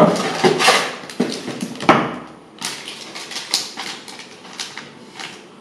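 Packaging being torn open and handled: irregular rustling and crinkling with sharp clicks and a heavier knock about two seconds in, fading near the end.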